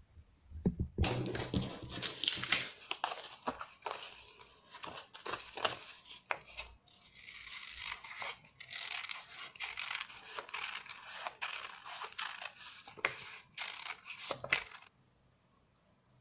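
Scissors cutting along a spiral drawn on a circle of coloured A4 paper, with a quick run of snips and the paper rustling as it is turned. The cutting stops abruptly near the end.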